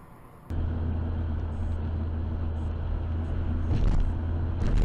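Steady low drone of a car's engine and tyres heard from inside the cabin through a dashcam while driving, starting abruptly about half a second in.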